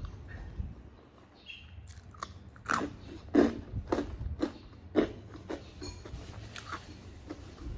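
A person chewing sate Madura, with close mouth sounds of biting and chewing at about two strokes a second, starting about two seconds in.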